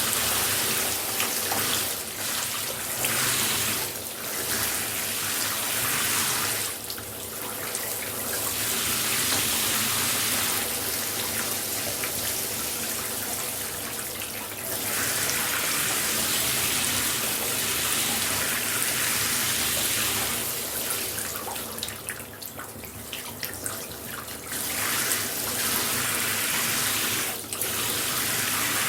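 Shower spray running steadily, a dense hiss of water falling onto a hard surface. Several times the bright hiss thins and dips for a second or two, most of all around the middle and late parts, then comes back full.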